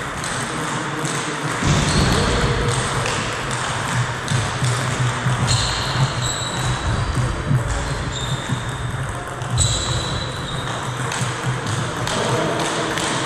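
Table tennis ball clicking off bats and table in a rally, then single bounces between points, at uneven intervals over steady background noise.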